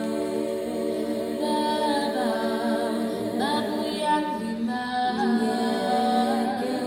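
A cappella vocal group singing in harmony, with no instruments: several voices hold long chords under an upper voice that slides between notes.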